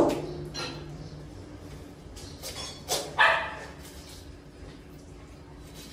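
A dog barking: one bark at the start and a louder one about three seconds in, with short scrapes and clicks between them.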